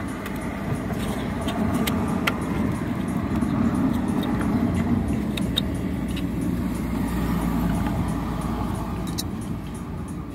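Small plastic clicks and light rattles as the MAP sensor and its connector are handled, over a steady low rumble that swells through the middle and eases near the end.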